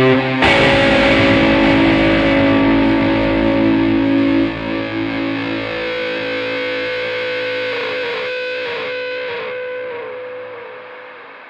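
Instrumental music: a distorted guitar chord with effects, struck about half a second in and left to ring, slowly fading away.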